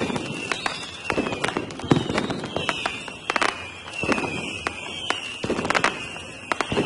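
Fireworks crackling and popping in rapid, irregular sharp bangs, over a high wavering whistle.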